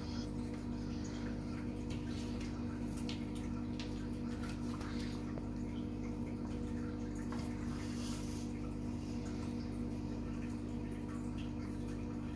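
Steady low machine hum, unchanging, with faint scattered clicks and rustles over it.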